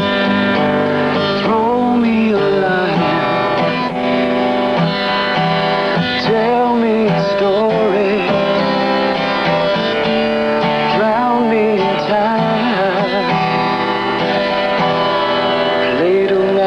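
Acoustic guitar music: steady strummed chords with a sliding, wavering melody over them.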